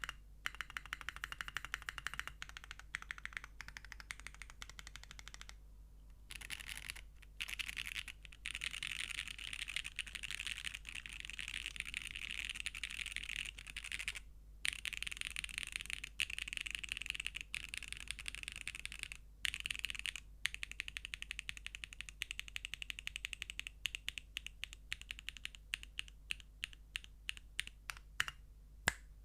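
Custom mechanical keyboard with SWK x Kezewa Typewriter switches, a polypropylene plate and GMK keycaps, keys pressed one at a time. Separate keystrokes at the start give way to a long run of rapid presses in the middle, then slower single presses, with one louder stroke near the end.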